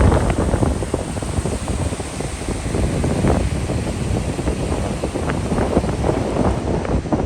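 Wind buffeting the microphone: a loud, gusty rumble with uneven bursts.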